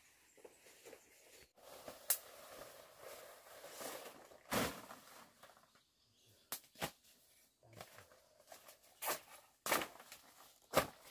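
Dong leaves being picked by hand in dense undergrowth: irregular rustling of the large leaves, broken by about seven sharp snaps or cracks.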